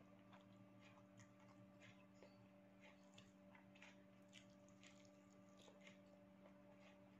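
Very faint, irregular wet clicks of a person chewing a mouthful of fried instant noodles, a few times a second, over a steady low electrical hum.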